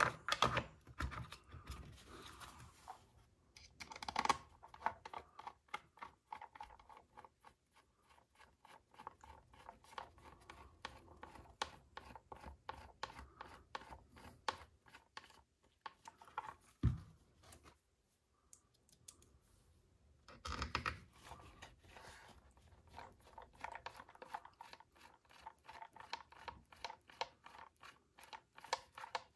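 Quick runs of small clicks and scrapes as screws are turned into the plastic chassis of a Traxxas Rally RC car by hand, with one sharper knock about halfway through.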